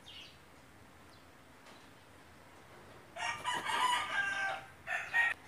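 A rooster crowing once, starting about three seconds in, a loud call of about a second and a half that ends in a short final note.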